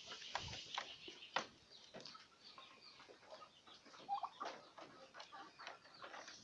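Faint bird calls mixed with scattered light clicks and taps.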